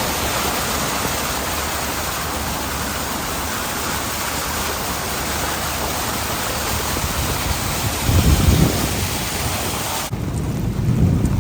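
Heavy rain falling steadily as a loud, even hiss, with low rumbles swelling about eight seconds in and again near the end; the hiss drops away sharply just after ten seconds.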